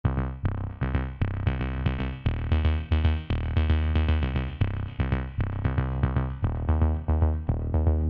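Electronic background music: quick repeated synthesizer notes over a deep, steady bass.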